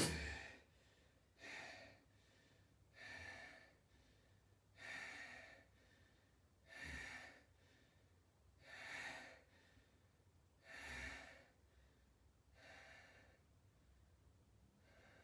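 A person breathing slowly and audibly, about eight breaths roughly two seconds apart, the last ones fainter.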